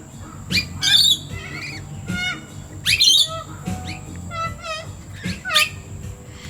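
Wild birds calling with sharp, rising squawks and chirps every second or so, over background music.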